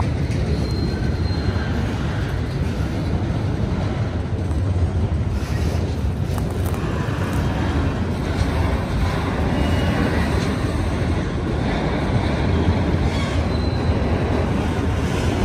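Freight train rolling past: a steady rumble of wheels on rail, with a few brief, faint high squeals.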